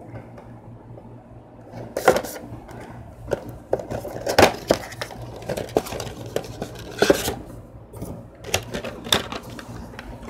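A small cardboard toy box being opened by hand and a figure pulled out of it: irregular scrapes, rustles and clicks of the packaging, the loudest about two, four and a half, seven and nine seconds in.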